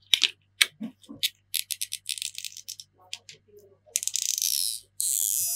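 Fingers and plastic tools working inside an opened iPhone 7: sharp little clicks, then a quick flurry of crackles. Near the end come two harsh scrapes of about a second each.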